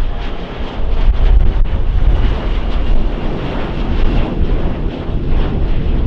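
Jet airliner climbing away after takeoff: a steady low rumble of engine noise, with wind buffeting the microphone.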